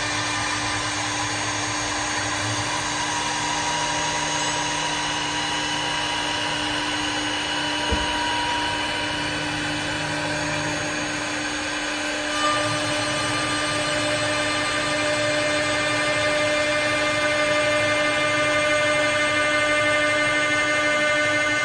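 Single-spindle CNC wood lathe milling a wooden billiard cue blank: the spindle and stepper motors give a steady whine of several tones, whose pitches shift about halfway through. A sharp click comes about eight seconds in and a small knock about twelve seconds in.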